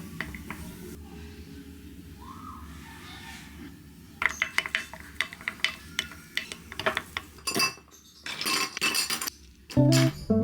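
Dishes, glass and utensils clinking in a run of sharp knocks while matcha is being made. Guitar music comes in near the end.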